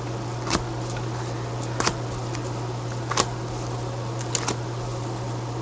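Cards being drawn one at a time off the top of a deck, a short sharp snap about every second and a half, four in all, over a steady low hum.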